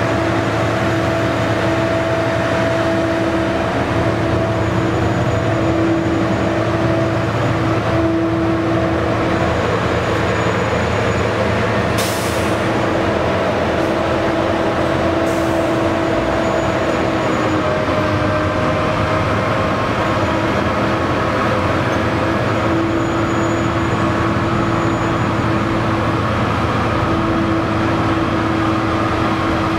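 Large loader-mounted snowblower running steadily with a high, steady whine, blowing snow into a dump truck, over the steady running of heavy engines. Two short hisses cut in about twelve seconds in and again about three seconds later.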